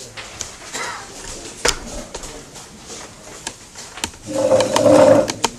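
Wooden chess pieces clacking down on boards and chess clock buttons being pressed: a scatter of sharp clicks and knocks. A short vocal sound about four seconds in is the loudest part.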